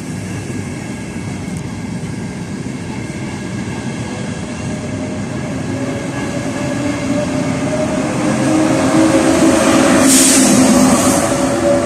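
ETR 500 Frecciarossa high-speed electric train pulling out and gathering speed past the platform: steady rolling noise from wheels and carriages, joined by an electric whine that edges up in pitch as it accelerates. It grows louder and is loudest about ten seconds in, as the power car goes by.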